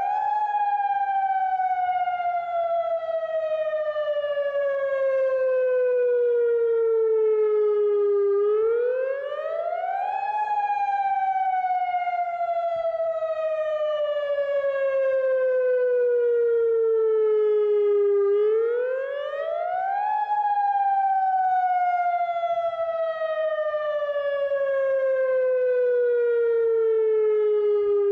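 Federal Signal Modulator 8032B outdoor warning siren sounding its wail test signal. The pitch climbs quickly for about two seconds, then falls slowly for about eight, and this repeats about every ten seconds, nearly three times.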